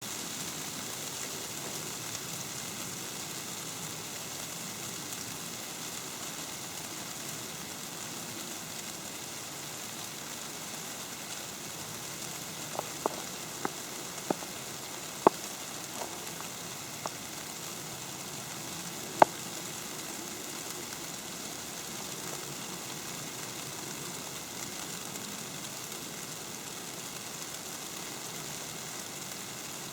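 Snow falling on an umbrella, a steady soft hiss, with a scattered handful of sharp taps on the canopy about halfway through.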